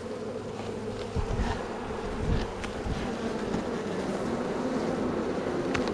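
Honeybee colony buzzing steadily, many bees in flight around an opened hive. A few short wooden knocks as a hive box is set in place, the sharpest near the end.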